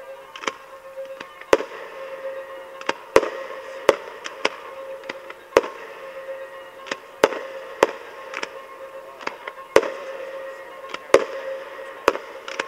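Aerial fireworks shells bursting in a rapid, irregular series of sharp bangs, roughly one or two a second.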